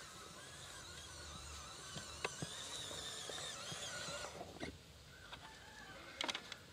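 WPL D12 RC mini pickup's electric motor and geared drivetrain whining under throttle, its pitch wavering as the truck crawls, then cutting off about four seconds in. A few sharp clicks near the end as the battery lead is handled.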